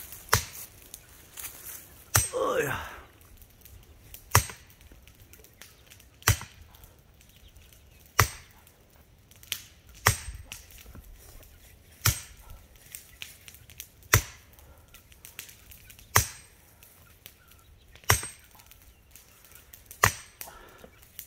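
Sledgehammer blows driving a well pipe into the ground, a sharp strike about every two seconds, eleven in all. Just after the second blow there is a brief sound that falls in pitch.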